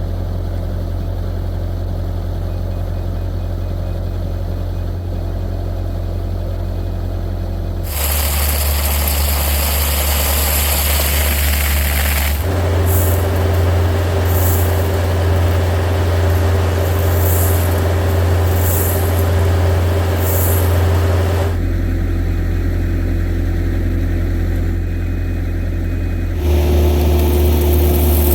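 Heavy excavation machinery's engine running steadily, its sound stepping abruptly louder or quieter several times.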